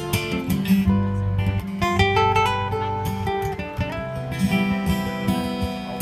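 Live instrumental ukulele music: plucked and strummed ukuleles playing a melody over a steady low bass line.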